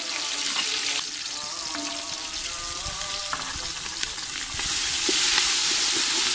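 Ginger-garlic paste and chopped green chillies sizzling in hot oil with fried onions in an aluminium pot. The sizzle grows louder about four and a half seconds in, as a wooden spoon starts stirring.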